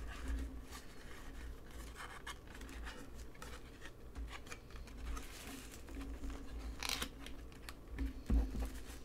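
Hands packing an enamel pin and its card backing into a small box: light scratching and scraping of card and plastic, with a few short crisp rustles, the clearest about seven and eight seconds in.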